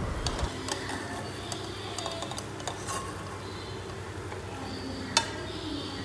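Batter-coated potatoes frying in hot oil with a steady sizzle, while a steel slotted spoon scrapes and clicks lightly against the metal pan as they are lifted out. One sharp click comes about five seconds in.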